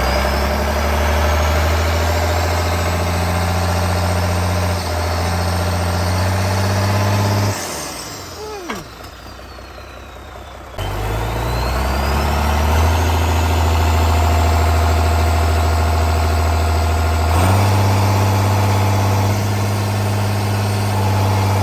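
Tractor engine running steadily, with a high whine that rises in pitch. The engine sound drops away about seven and a half seconds in and comes back about three seconds later.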